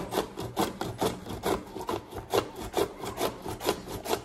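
Cucumber grated by hand on the metal blade of a plastic box grater: steady rhythmic rasping strokes, about three a second.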